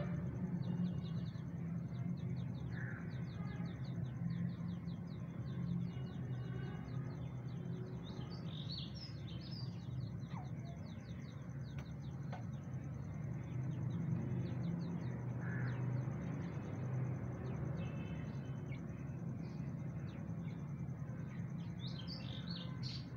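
Faint high-pitched peeping and chirping of grey francolin chicks, with a couple of louder short calls about a third of the way in and near the end, over a steady low hum.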